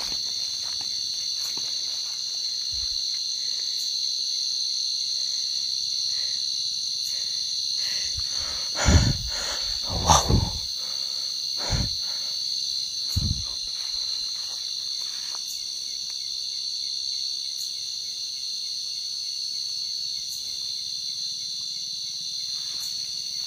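Steady, high-pitched chorus of night insects trilling without a break. Near the middle, a few short thumps stand out.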